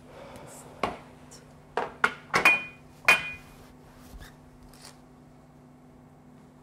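Sharp knocks and clinks of objects set down on a wooden bar counter, about five in two and a half seconds starting about a second in, the last two with a brief glassy ring.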